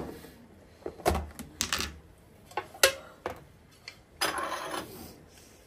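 Small ceramic dishes clicking and knocking as they are set down and shifted on a stone countertop: a scattering of separate sharp taps, then a brief scraping noise a little past four seconds as a tray is brought onto the counter.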